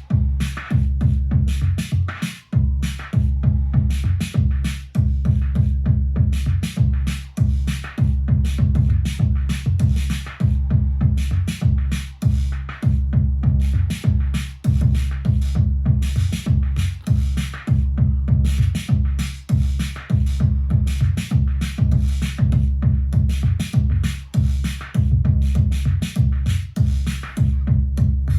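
Arturia DrumBrute Impact analog drum machine playing a looping electronic beat: deep booming low drums under fast clicking hi-hats and percussion. The beat drops out briefly about two seconds in.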